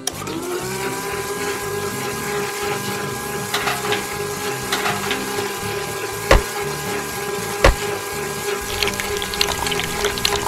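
Small electric motor of a miniature model water pump switched on, spinning up in about half a second to a steady whine. Two sharp knocks come in the middle, and near the end liquid trickles from the outlet pipes into small plastic buckets.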